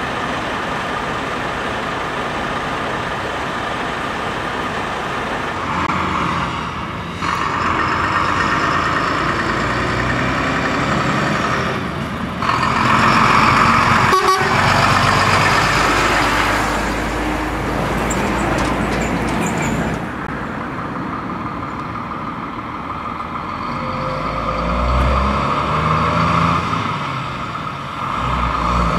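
Heavy lorries driving past with their diesel engines running, and long horn blasts sounding over the engines at times.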